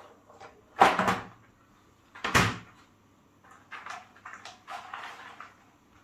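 A loud knock about a second in and another about a second and a half later, then lighter clicks and rustling as things are handled, typical of a cupboard door and objects being moved about in a home.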